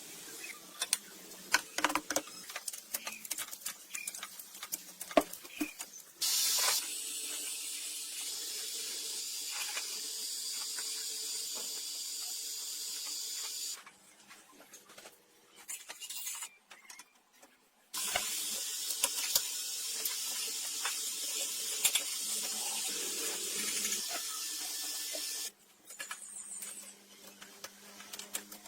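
Two long spells of steady, high spraying hiss, each lasting about seven seconds, the first starting with a short louder burst. Scattered clicks and knocks come before the first spell, between the two, and after the second.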